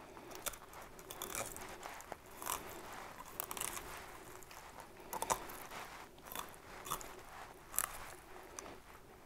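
Fillet knife working a walleye's second fillet free along the rib bones: faint, irregular crunches and scrapes of the blade through flesh and over bone.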